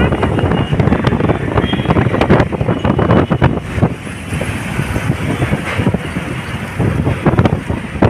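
Loud, gusty wind buffeting the microphone over a rumble of road traffic, easing a little about four seconds in.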